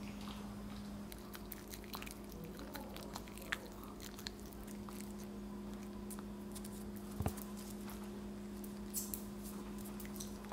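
Maltese dogs chewing and mouthing a chunk of potato: scattered small smacks and clicks of their jaws, with a couple of sharper clicks.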